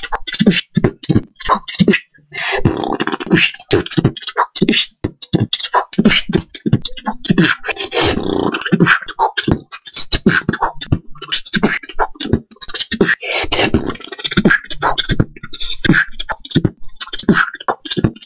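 Solo new-school beatboxing freestyle: rapid mouth-made kick, snare and hi-hat strokes, several a second. Three longer held throat-bass passages, about a second each, come in near the start, the middle and about two-thirds through.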